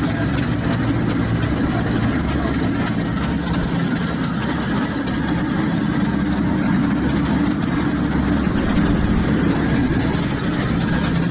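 Fishing boat's engine running steadily under way, a constant low hum, with the rush of wind and wake water over it.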